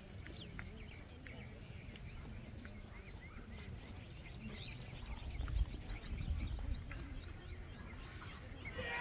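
Outdoor ambience: small birds chirping on and off over a low steady rumble, with a few louder low bumps about five to seven seconds in.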